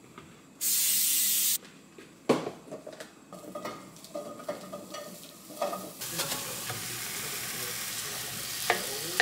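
Mushrooms and plant-based ground meat frying in a pan, with a steady sizzle from about six seconds in while a wooden spatula scrapes and breaks up the meat. Before that, a loud hiss lasts about a second, then knocks and clatters as the mushrooms are tipped into the pan.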